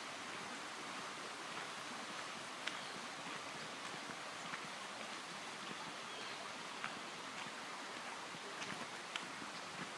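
Steady rushing of a mountain stream, with a few short sharp ticks scattered over it.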